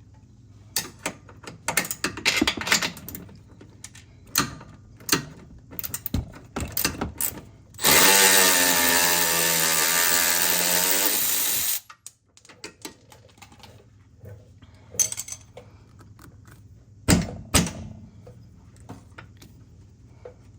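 Metal clinks and clanks of a wrench and socket being handled. About eight seconds in, a cordless power tool runs loudly and steadily for about four seconds, then cuts off, loosening an 18 mm nut and bolt. A few more sharp metal clicks follow.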